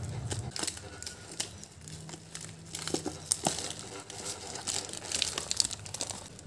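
Clear plastic wrapping crinkling and crackling in irregular bursts as hands handle wrapped items.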